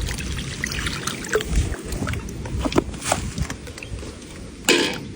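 Water splashing and sloshing over a low rumble, with scattered small knocks and a louder splash near the end.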